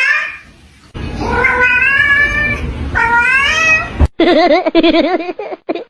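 Cat meowing: two long, drawn-out meows. About four seconds in there is an abrupt cut to a lower, rapidly wavering call.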